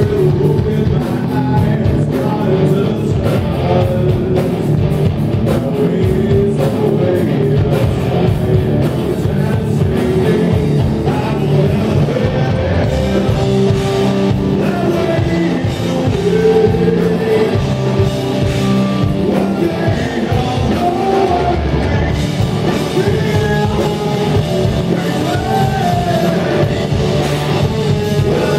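Live hard rock band playing: a singer over distorted electric guitars, bass and a drum kit, loud and continuous.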